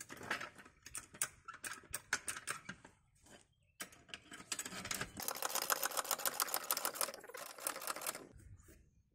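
Hydraulic trolley jack being pumped to lift a car: a rapid run of metallic clicks and rattles, stopping briefly about three seconds in, then a denser, faster run of clicks from about five to eight seconds in.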